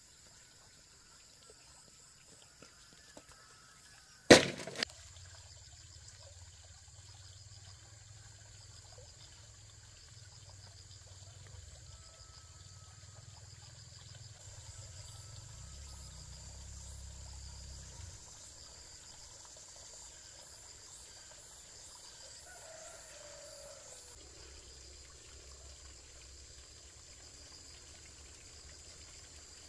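A loud, sharp knock of bamboo poles about four seconds in, then a smaller knock half a second later. Steady high insect chirring runs underneath.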